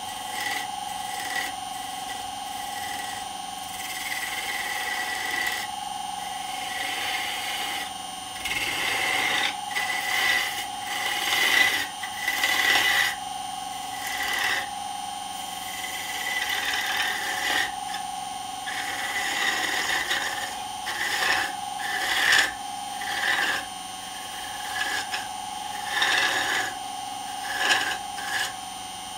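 Wood lathe running with a steady motor whine while a turning tool cuts a spinning red cedar blank. The cutting comes as irregular scraping passes that grow louder and more frequent from about eight seconds in.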